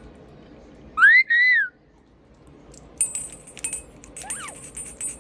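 Double yellow-headed Amazon parrot whistling: two short arched notes about a second in, each rising then falling. Light clicking and clinking follows, with a faint, brief second whistle.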